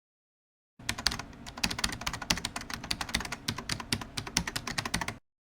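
Fast computer keyboard typing, a dense run of sharp clicks that starts about a second in and stops abruptly just before the end.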